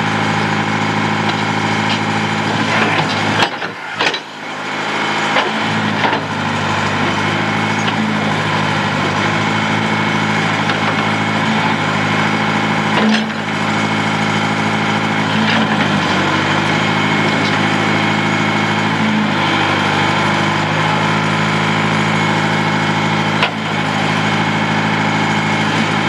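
Backhoe engine running steadily under way, with a few sharp knocks and cracks, a cluster of them about four seconds in and single ones later.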